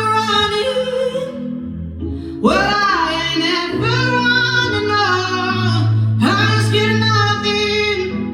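A female vocalist sings three long, held phrases with sliding pitch in a live song performance, over band accompaniment with sustained bass notes.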